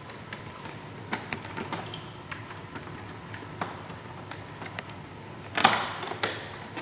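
Scattered light plastic clicks and taps as trim pieces and fasteners on a Yamaha YZF-R1's front side fairing are worked loose by hand, with a louder clatter of plastic about five and a half seconds in.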